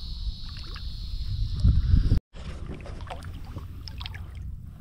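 Water and handling sounds around a kayak during the landing of a fish. A low rumble builds, then cuts off abruptly about two seconds in, followed by scattered light knocks and splashes.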